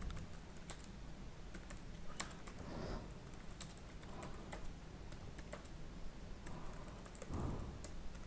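Computer keyboard being typed on: soft, irregular key clicks as a command is entered.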